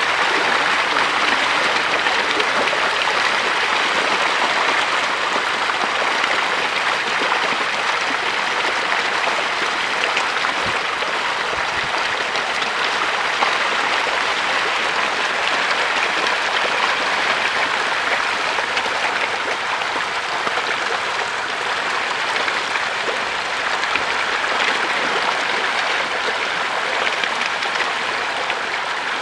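A dense shoal of catfish thrashing at the surface of shallow pond water as they feed: steady, continuous splashing.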